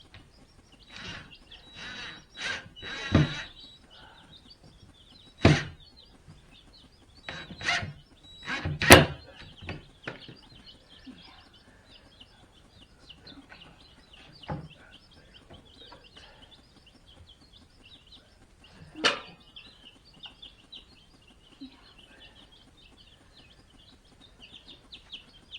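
A brood of three-day-old baby chicks peeping continuously. Several short knocks and clatters cut through, the loudest about three, five, nine and nineteen seconds in.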